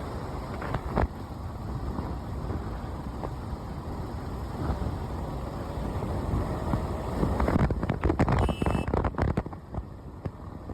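Wind rushing over the microphone over the road noise of a moving vehicle. About eight seconds in, a short cluster of knocks and rattles breaks through.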